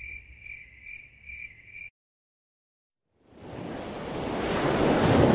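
Insects chirping in a pulsing high trill, about two pulses a second, that cuts off suddenly about two seconds in. After a second of silence, the wash of sea surf rises and swells loud near the end.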